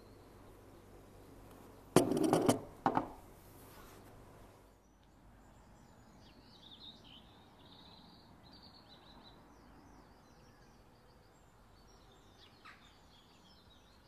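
Sharp clicks and knocks from a glass perfume bottle and its cap being handled: a quick cluster about two seconds in, then a couple more just after. After about five seconds the background changes and faint bird chirps come and go.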